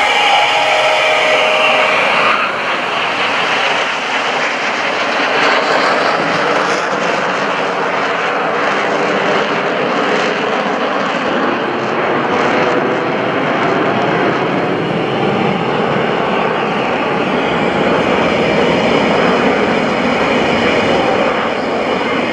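Jet engines of Blue Angels F/A-18 Hornets, loud and steady, with a high whine in the first two seconds that drops in pitch.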